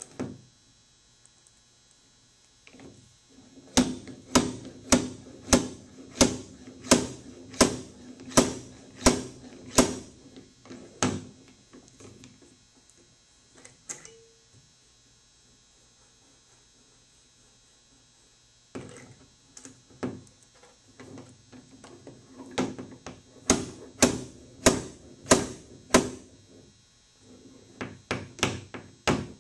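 Slide-hammer dent puller hooked onto a stud welded into the dented steel body panel of a 2002 Volkswagen Beetle, its weight driven back against the stop in sharp metallic knocks, about two a second. They come in two long runs with a pause between and a few lighter knocks near the end, pulling the dent out.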